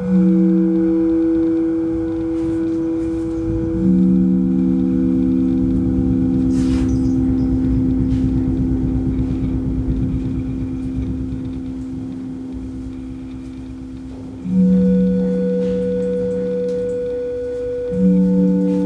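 Ambient music of layered ringing tones. Each tone comes in with a sudden onset and rings on, slowly fading, overlapping and beating against the others. New tones enter about four seconds in, about fourteen and a half seconds in, and near the end.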